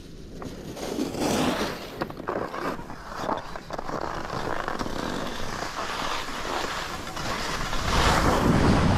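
Ski or board edges scraping and carving over hard, chopped-up piste snow on a fast descent, with wind rushing over the microphone; it swells loudest near the end.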